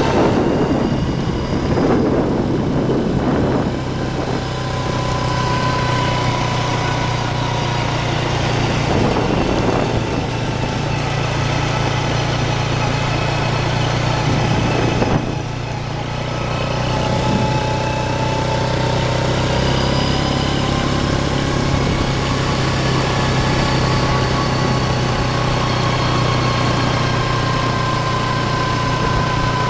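ATV engine running steadily at low speed, its pitch drifting up and down with the throttle. It eases off briefly about halfway through, then picks back up.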